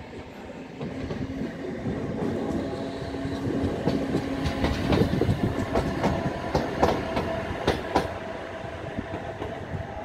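A single Bombardier TRAXX electric locomotive running past with no train behind it. It hums steadily and its wheels click over rail joints, louder and faster as it passes about halfway, then easing as it moves away.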